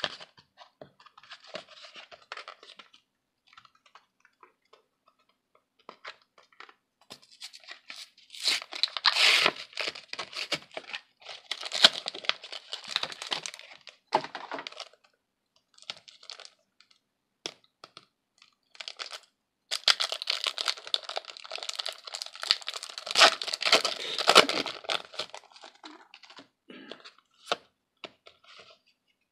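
Yu-Gi-Oh! booster pack's foil wrapper being crinkled and torn open by hand, in two longer, louder stretches of crinkling, about eight seconds in and about twenty seconds in, with scattered lighter handling noise around them.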